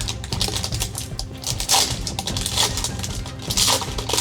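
A trading card pack's wrapper crinkling and tearing as it is opened, in several short bursts, over steady background music.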